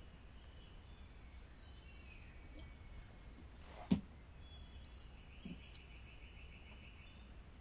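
Quiet room tone with a steady high whine and faint cricket trilling, broken by one sharp knock about four seconds in.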